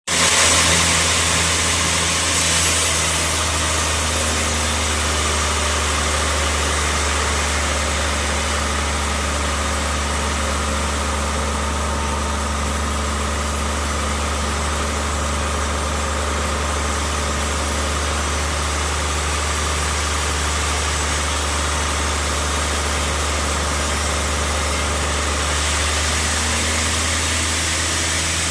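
Band sawmill running, its drive giving a steady low hum with a hiss above it that brightens briefly a couple of seconds in and again near the end.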